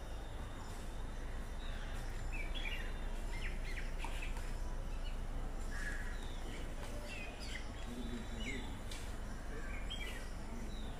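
Small birds chirping in short, scattered calls over a steady outdoor background hiss.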